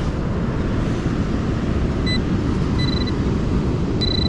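Metal-detecting pinpointer sounding over a buried target. There is a short beep about two seconds in and a slightly longer one about a second later, then a steady tone that starts just before the end. Underneath is a constant low rumble of heavy storm surf.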